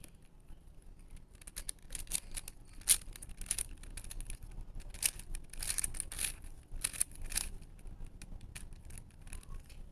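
Plastic Rubik's-type puzzle cube being turned by hand: irregular runs of quick clicks and rattles as the layers snap round, busiest from about two to seven and a half seconds in.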